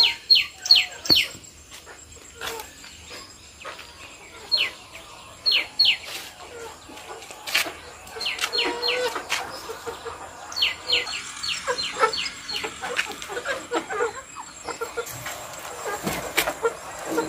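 Chickens calling: repeated short high peeps that fall sharply in pitch, coming in quick runs of three to six, with low short clucks joining in from about halfway.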